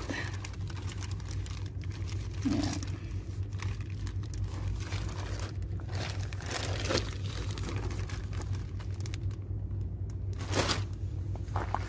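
Clear plastic packaging bag crinkling and rustling in short bursts as it is handled, over a steady low hum.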